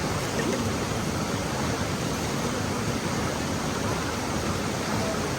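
Rushing river water: a steady, even rush with no breaks.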